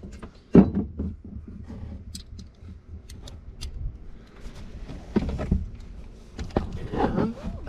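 Irregular metal clicks and knocks from a socket and extension being handled as a bolt is set in the socket and worked up toward its hole in a bracket. The sharpest knock comes about half a second in, with more clusters of knocks near the end.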